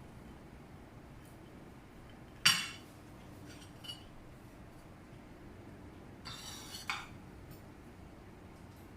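Pieces of a tiered cake plate set clinking together as they are handled. There is one sharp, ringing clink about two and a half seconds in, then a faint click, then a short scrape that ends in another clink near the end.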